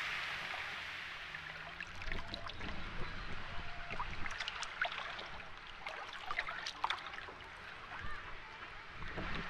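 Small lake waves lapping and splashing among shoreline rocks close to the water, a run of irregular splashes and gurgles. It starts about a second and a half in, after a steady rush of wind and surf.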